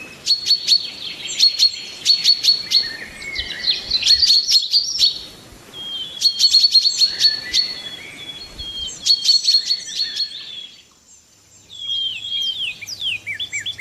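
Birds singing: bouts of rapid, sharp, high chirps, each about a second long, repeated again and again. After a short lull about eleven seconds in comes a run of quick falling notes.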